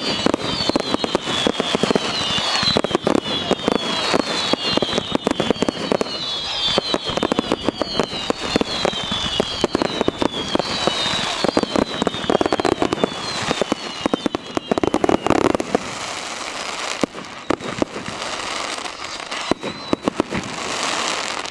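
Fireworks display: dense crackling and popping throughout, with a run of high whistles, each falling in pitch, over the first dozen seconds and a few heavier bangs after the middle.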